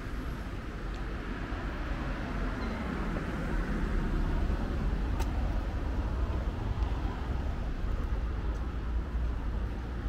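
Steady road traffic noise with a low rumble, growing somewhat louder from about three seconds in.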